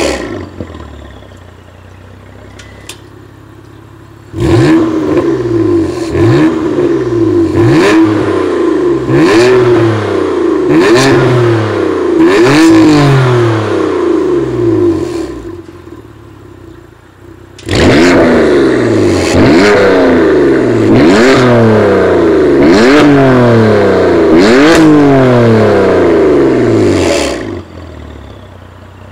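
A BMW M4 (F82)'s twin-turbo inline-six is revved at standstill through a Rowen full-titanium straight-through exhaust with no catalyst. It gives two runs of quick throttle blips, about one every second and a half, each a sharp rise in pitch that falls away. It idles before, between and after the two runs.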